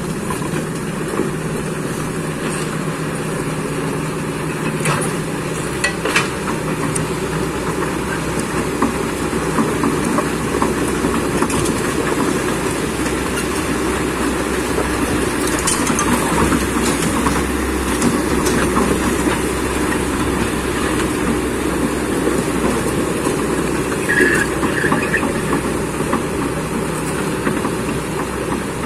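Kobelco excavator's diesel engine running steadily while its steel tracks clatter, with a few short knocks along the way.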